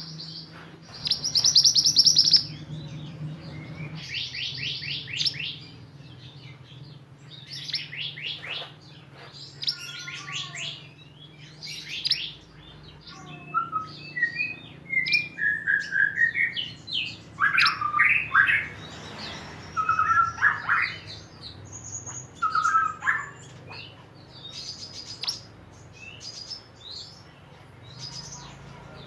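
A white-eye (pleci) singing in rapid, high 'tembakan' trills: bursts of fast repeated notes, the loudest about a second or two in. These give way to varied shorter whistled phrases in the second half, over a faint steady low hum.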